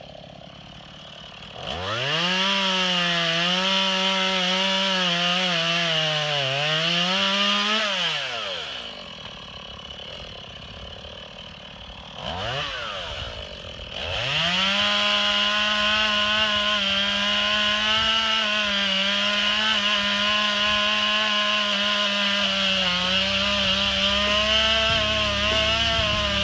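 STIHL MS 180 C two-stroke chainsaw revved to full throttle and held there, its pitch sagging briefly as it loads in the cut. It drops back to idle for a few seconds, is blipped once, then runs high and steady.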